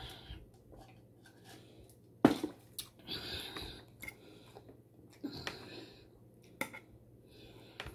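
Close-up eating sounds: chewing, and a fork clinking and scraping on a plate. One sharp loud knock a little over two seconds in, as a stainless steel tumbler is set down on the table.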